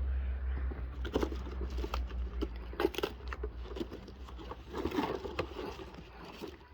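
Tool attachments and their packaging being handled: rustling and crinkling with scattered light knocks and clicks.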